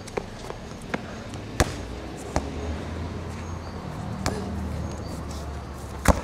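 A handheld camcorder being carried over grass: scattered knocks and thumps from handling and footsteps, the loudest near the end, with a low rumble through the middle.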